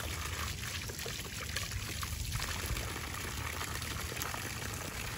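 Water pouring from an outdoor yard hydrant and splashing onto the ground in a steady trickle; the splash grows fuller a little over two seconds in.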